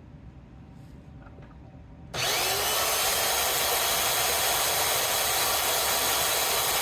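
Electric belt knife sharpener switching on a little over two seconds in, then running steadily as it grinds a new edge on a thin Japanese utility knife at a 14-degree angle.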